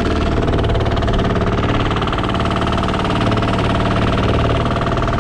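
Fishing boat's engine running steadily under way, a loud, even drone with a rapid regular pulse.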